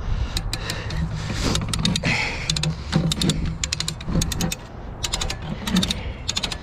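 Hand-operated come-along ratchet winch clicking in repeated short bursts as its handle is pumped, hauling in a stuck magnet-fishing line under tension.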